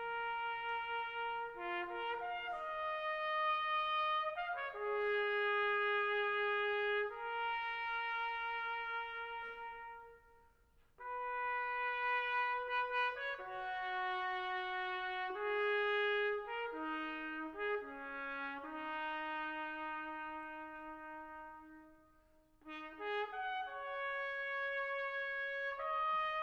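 Solo trumpet playing a slow melody, one held note at a time, with two brief pauses, about ten and about twenty-two seconds in.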